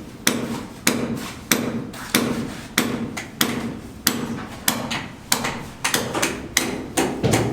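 Hammer blows struck at a steady rhythm, about three every two seconds, each a sharp knock with a short ringing tail.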